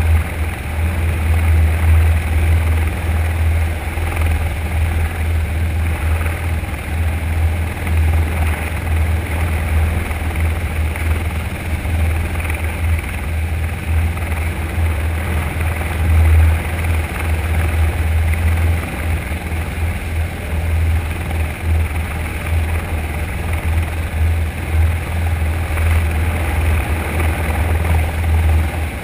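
Eurocopter EC120B helicopter hovering, heard close up: a steady, loud, low churning rotor noise with engine hiss above it.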